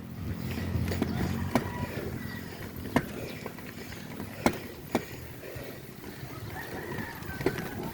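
Low rumble of riding on a bicycle, heaviest in the first two seconds, with a few sharp, irregularly spaced clicks or knocks.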